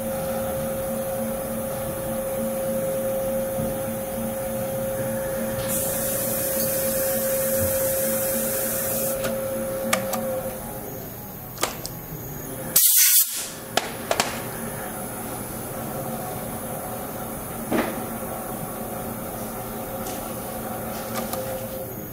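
The seat and guide machine's spindle motor runs with a steady hum and stops about halfway through. A hiss comes in for a few seconds while it runs. After it stops there are a few sharp metal clicks and knocks, and a brief loud burst of noise.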